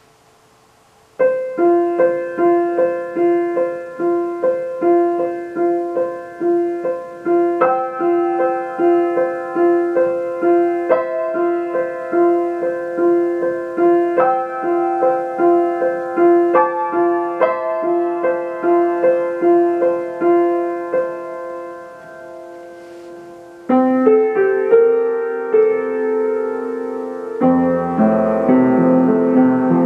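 Solo piano on a K. Kawai grand piano: after a brief silence, a steadily repeated two-note accompaniment in the middle register with a slow melody above it. It dies away around 22 seconds in, then a louder, fuller passage begins, with deep bass notes joining near the end.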